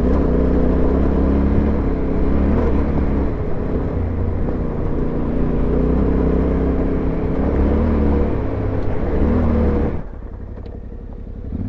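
Yamaha Ténéré 700 parallel-twin engine with an aftermarket high exhaust pulling the bike up a gravel track, its note wavering and rising briefly with the throttle. About ten seconds in it drops to a much quieter, lower running as the throttle closes.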